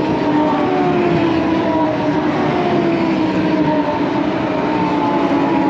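Several race car engines running at high revs on the circuit, their notes overlapping and sliding slowly downward, over a steady haze of track noise.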